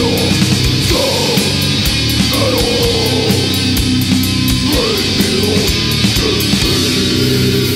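Death metal recording: heavily distorted electric guitars over drums, with a fast, even cymbal beat.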